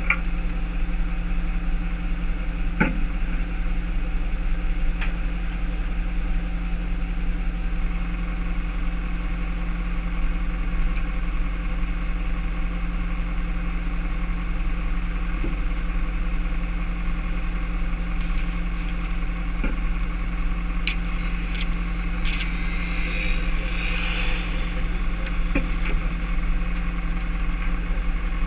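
Tow truck engine idling steadily, with a few light clicks and a brief rustle about three quarters of the way in.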